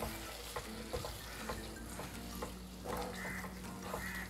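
Wooden spatula stirring squid pieces through thick masala paste in a non-stick kadhai over the gas flame: soft, irregular scrapes and taps against the pan, with a faint sizzle.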